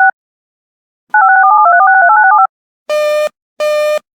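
Emergency Alert System digital end-of-message bursts: a warbling, rapid two-tone chirping that cuts off just after the start, and a second burst of just over a second beginning about a second in. Near the end come two buzzy beeps, the start of an evenly paced on-off series.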